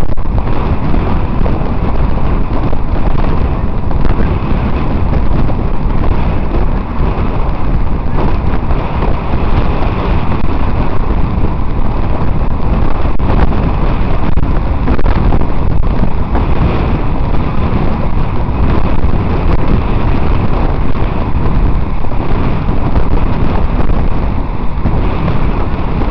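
Wind rushing over the microphone of a camera riding on a moving bicycle, a loud, steady noise that masks other sounds.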